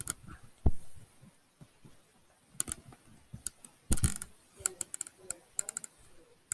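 Clusters of quick, sharp clicks from keys being typed on a keyboard close to the microphone, with two louder dull thumps, one under a second in and one about four seconds in.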